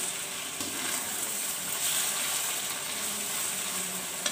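Onions, green chillies and tomato sizzling in hot oil in a metal pan while being stirred with a metal slotted spoon, a steady hiss, with one sharp tap of the spoon near the end.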